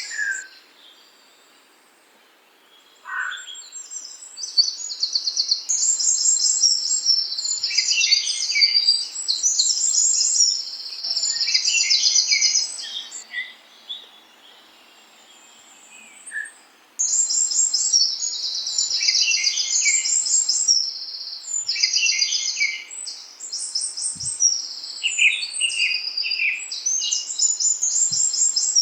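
Songbirds chirping and trilling in quick, high-pitched runs, with two short lulls where the calling drops away.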